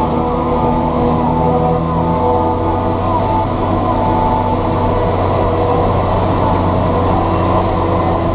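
John Deere 7710 tractor's six-cylinder diesel running steadily under load, a constant low drone with a wavering whine over it.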